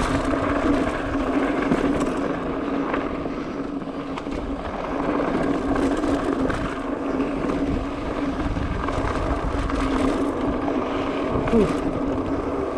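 Mountain bike descending a dirt and loose-gravel trail: knobby tyres rolling and crunching over the ground, with wind on the microphone and a steady hum from the bike throughout. A brief falling squeak stands out about a second before the end.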